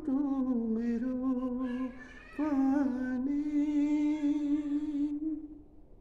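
A man singing unaccompanied, holding two long drawn-out notes of a Nepali song, with a short break between them; the second note fades out near the end.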